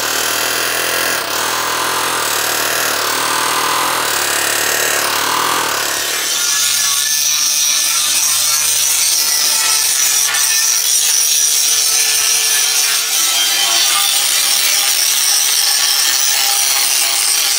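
Pneumatic air hammer buzzing against a riveted steel bracket on a pickup frame rail, working to break the frame's rivets. About six seconds in it gives way to an electric angle grinder running steadily as it grinds the bare steel frame.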